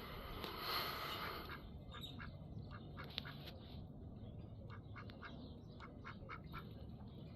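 Pet duck giving a quiet run of short quacks, several a second, after a louder noisy burst near the start.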